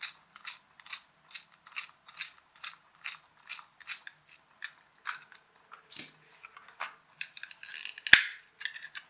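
A precision screwdriver turning a small screw out of a plastic toy car body, clicking regularly a little over twice a second. About 8 seconds in comes a single loud snap as the plastic shell is pulled apart.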